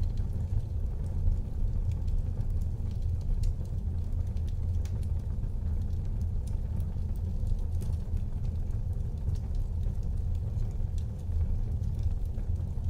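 Wood fire burning in a fireplace: a steady low rumble of the flames with scattered sharp crackles and pops from the burning wood.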